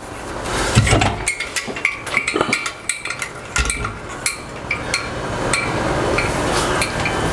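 Metal clinks and knocks, many in quick succession with short metallic ringing, as an LED light fixture on its hanging chain is handled and hung from a ceiling hook.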